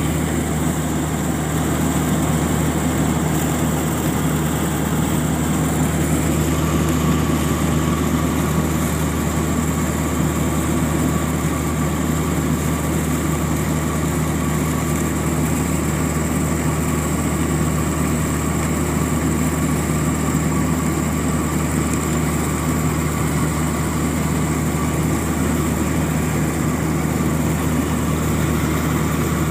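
Rice combine harvester running steadily as it cuts standing rice: a constant engine drone with machinery hum and a thin, steady high whine over it, heard close from on board.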